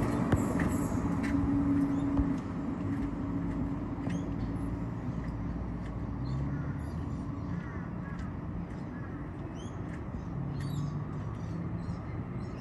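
A vehicle's engine runs with a steady low hum, louder for about the first two seconds and then quieter. Birds chirp over it.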